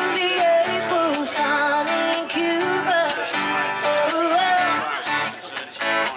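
Acoustic guitar strummed with a singer's voice carrying a melody over it: live music from a solo guitarist-singer through a small PA.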